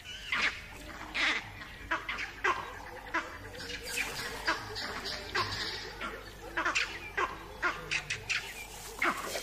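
Vervet monkeys giving a string of short, repeated alarm calls, irregularly spaced, several close together at times.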